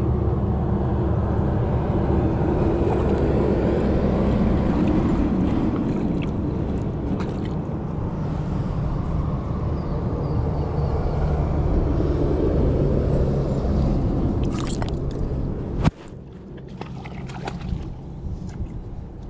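Steady rushing and gurgling of river water. Near the end a sharp knock, after which the sound is quieter, with a few scattered clicks.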